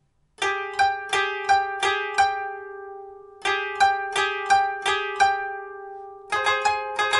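Koto, the 13-string Japanese zither, plucked with finger picks: after about half a second of silence, two phrases of six evenly spaced notes on mostly one pitch, each left to ring, then quicker plucks with a second, higher note joining near the end.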